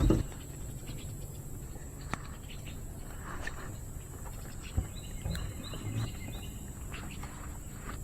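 Outdoor lakeside ambience: a steady high-pitched insect drone, with a bird calling in a short run of repeated high notes about five seconds in and a few light knocks.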